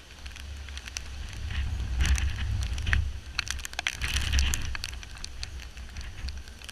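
Tropical-storm wind gusting against the camera microphone as a low rumble that swells about two seconds in and again around four seconds. Scattered sharp ticks of raindrops hitting the camera run through it.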